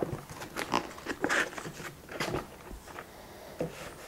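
Cardboard being handled as a small accessory box is opened: an irregular run of short scrapes, rustles and taps from the flaps and the packed contents. The sounds are busiest in the first couple of seconds and thin out later.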